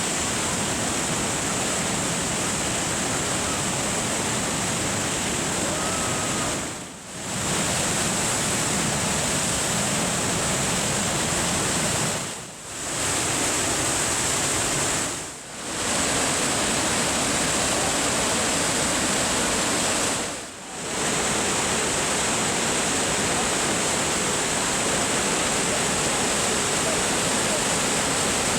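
Steady rushing noise of a waterfall. It fades out briefly and comes back four times.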